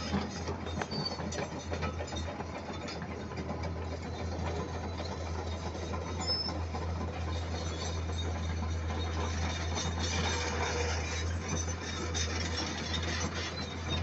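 Komatsu PC210 LC hydraulic excavator running close by, its diesel engine giving a steady low drone.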